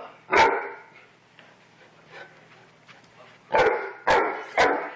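Large dog barking: one bark just after the start, then three quick barks about half a second apart near the end. The barking comes from a dog riled up at being sent to his crate, which the owner calls a little taste of a tantrum.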